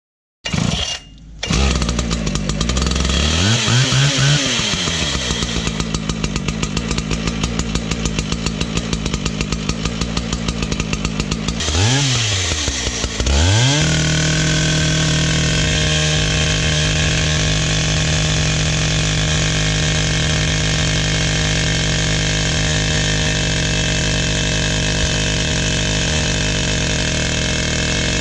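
ICS diamond masonry chainsaw engine starting up about half a second in, revving up and down, then running with an even pulsing beat. Around twelve to thirteen seconds in it is revved down and up twice, then held at a steady high speed as the diamond chain cuts into a brick wall under its water feed.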